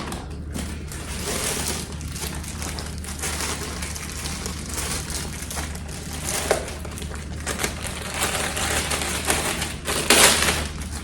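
Parcel packaging rustling and crinkling in irregular bursts as it is opened by hand, loudest near the end.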